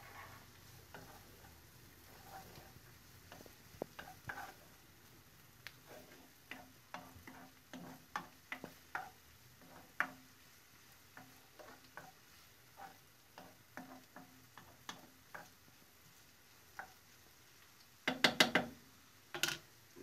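A spoon stirring chopped onion, red pepper and garlic in a stone-coated frying pan, with irregular soft scrapes and taps against the pan over a low sizzle. Near the end comes a short burst of louder clattering.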